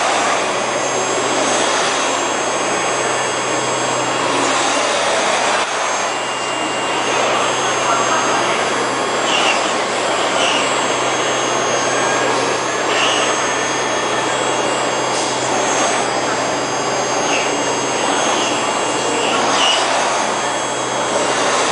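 Five-axis CNC machining center's spindle milling a model car body: a steady cutting and running noise over a constant low hum.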